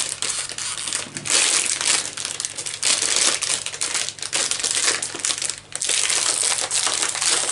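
Foil blind bag holding a mini figure crinkling steadily as it is handled and opened, with a short lull a little before the end.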